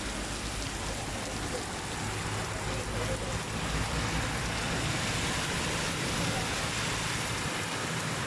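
Heavy rain pouring down as a steady hiss, growing a little louder about two seconds in, with a low hum underneath through the middle.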